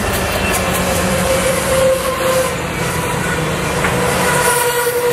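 Bilevel passenger train cars passing close by, their wheels rolling on the rails with a steady noise and a faint ringing tone from the wheels.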